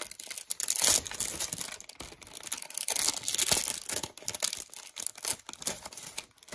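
Wrapper of a small pack of baseball cards being torn open and crinkled by hand, in irregular bursts of tearing and rustling.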